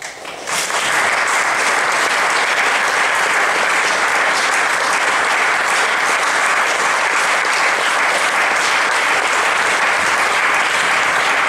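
Audience applauding: clapping breaks out suddenly and swells within about a second into steady applause.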